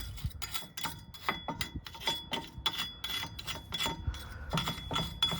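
Wire brush scrubbing the steel rear wheel hub where the brake rotor seats, in quick irregular strokes with light metallic clinks, cleaning it before a new rotor goes on.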